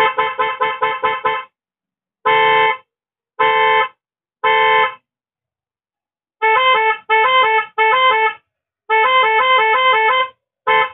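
A pair of Roots electric horns, one high-toned and one low-toned, driven by a Roots 12 V melody maker, running through its horn patterns. First comes a rapid string of about six short beeps, then three single blasts about a second apart. After a pause there are three blasts switching between the two pitches and one longer warbling two-tone run, and near the end the rapid beeping starts again.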